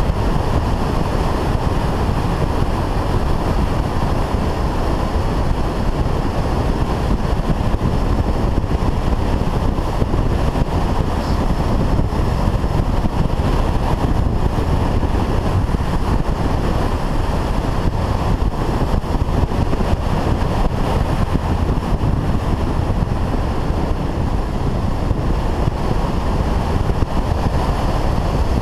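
Honda Varadero motorcycle riding at a steady road speed, heard mostly as wind rushing over the camera's microphone, with engine and tyre noise underneath. The noise stays even, with no gear changes or sudden sounds standing out.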